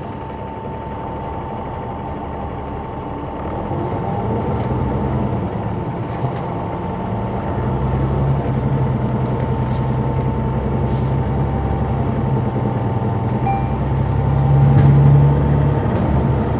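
Caterpillar C9 ACERT diesel engine of a Neoplan AN459 articulated bus running under way, heard from inside the back of the bus, with a steady whine over it. The engine grows louder about four seconds in, holds steady, and is loudest just before the end.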